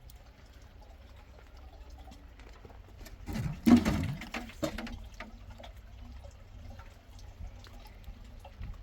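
A brief splash or pour of water, lasting about a second and a half and starting a little over three seconds in, over a faint low background hum.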